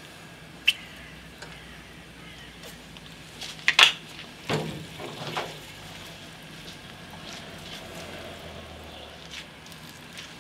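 A gas grill running with a faint steady sizzle, broken by a few sharp clicks and knocks. The loudest is a cluster about four seconds in.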